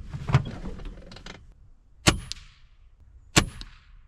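Gamo Swarm Fusion .22 break-barrel air rifle in use while a group is shot: soft handling clicks, then two sharp cracks about two seconds in and a little over a second later, each with a brief high ring.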